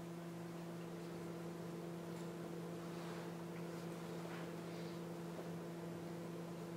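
Steady electrical hum, a low tone with a fainter one above it, over faint hiss, with a few soft faint rustles.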